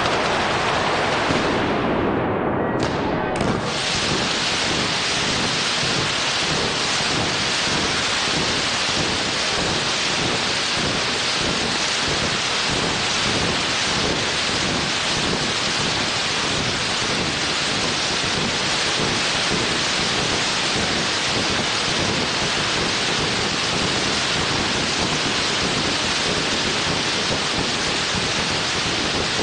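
Firecrackers loaded on a ceremonial cart going off nonstop: a loud, dense crackle of rapid bangs running together without a break.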